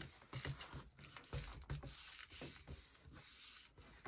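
Hands pressing a layered card panel onto a cutting mat with a cloth: soft rustling and rubbing of cloth and paper, with a few light knocks.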